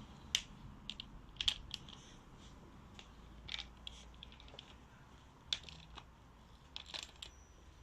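Faint, scattered light metallic clicks and taps, a second or more apart, from hand tools and metal parts being handled on a motorcycle's fork-top preload adjuster.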